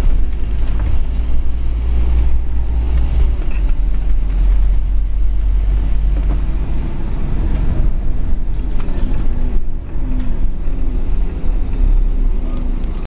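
Scania OmniCity N230UD double-decker bus's five-cylinder diesel engine running as the bus drives along, heard from inside the passenger saloon as a deep rumble with road noise and small interior rattles. The sound cuts off suddenly near the end.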